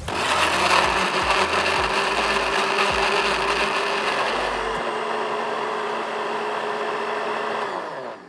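Electric kitchen blender running, blending banana, milk, egg and sugar into a liquid batter. It switches on abruptly, runs steadily for about eight seconds, then winds down with a falling pitch just before the end.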